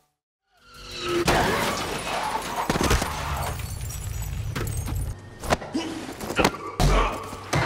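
Action-film sound effects: after a brief silence, a car's engine rumbles under a string of sudden crashes and impacts.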